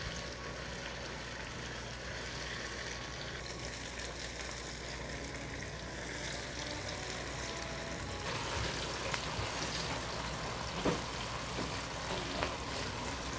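Sliced onions sizzling in hot oil while being stirred, early in browning them light brown. The sizzle grows brighter about eight seconds in, with a couple of light knocks near the end.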